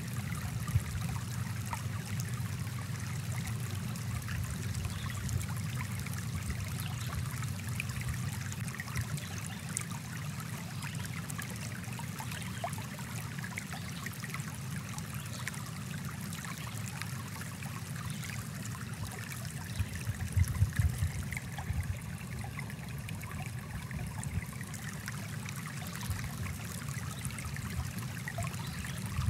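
Small stream flowing steadily, with a short louder stretch about twenty seconds in.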